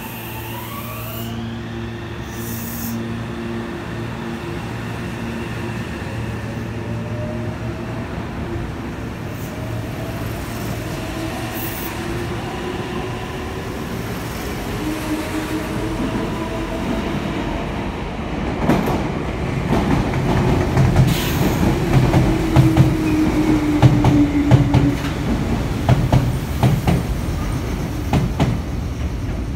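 A red-and-white Meitetsu limited-express electric train pulls out, its traction motors whining in several rising tones as it gathers speed. From about two-thirds in, a red Meitetsu commuter electric train runs in alongside. It is louder, with wheels clattering over rail joints and a slowly falling motor tone as it slows.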